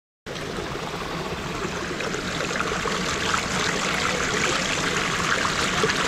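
Shallow waterfall stream running over rock and splashing around bare feet and cupped hands: a steady rush of water that grows a little louder.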